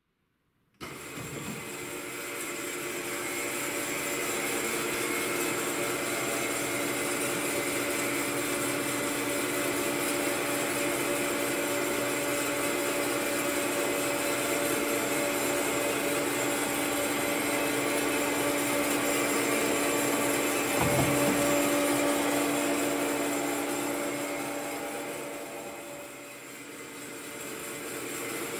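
FMB Jupiter automatic metal-cutting bandsaw starting up about a second in and running steadily with a constant hum and whine. There is a single knock about two-thirds of the way through, and the level dips briefly near the end before picking up again.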